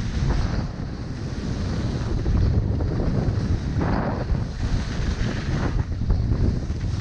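Wind buffeting the microphone of a camera moving downhill on skis, a constant heavy rumble, with the hiss of skis scraping over the snow swelling every second or two as the skier turns.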